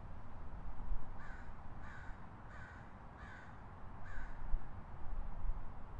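A bird calling five times in a row, the calls about two-thirds of a second apart, over a steady low city rumble.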